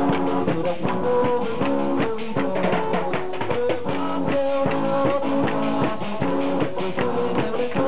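Live band music: a steady drum beat under a held, sung or played melody line.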